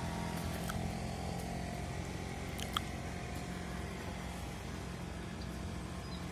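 Steady low hum of an idling vehicle engine, with one short sharp click a little under three seconds in.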